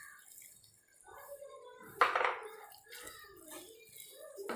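Wooden spatula stirring wet cabbage masala in a nonstick pan, with one sharp scrape against the pan about two seconds in and a lighter one near the end.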